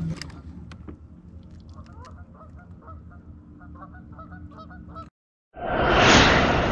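Geese honking, faint and repeated, over low background noise. About five seconds in the sound cuts out briefly, then a loud rushing noise swells and fades.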